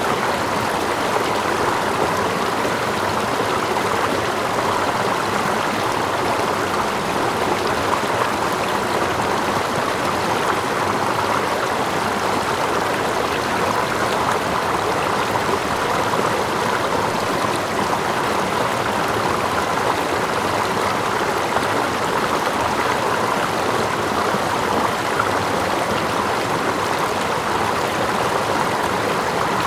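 Running water of a stream flowing steadily, with water lapping close by and a small waterfall cascading further off: a continuous, even rush with no breaks.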